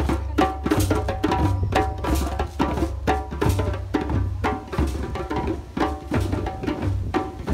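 Percussion music: hand drums struck in a steady, repeating rhythm, with pitched tones ringing between the beats.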